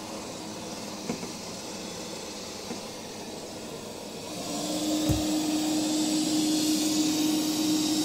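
Realme TechLife robot vacuum cleaner running on its standard suction mode. About four seconds in it switches up to maximum suction (3000 Pa) and gets louder, with a stronger hiss and a steady hum. There is a short low thump just after the change.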